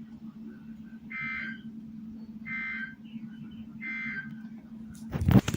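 Emergency Alert System end-of-message signal: three short bursts of two-tone digital data warble, about 1.4 s apart, closing the severe thunderstorm warning broadcast. A low steady hum runs underneath, and a sharp thump comes near the end.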